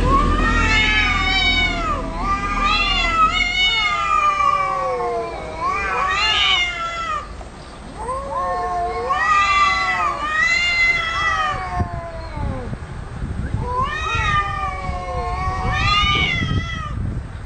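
Cats caterwauling at each other in a face-off: long, drawn-out yowls that waver up and down in pitch, in about six bouts with short pauses between them. It is the threatening yowl of two cats squaring up to fight.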